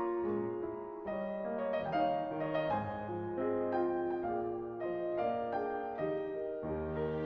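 Background piano music, a slow melody of held notes.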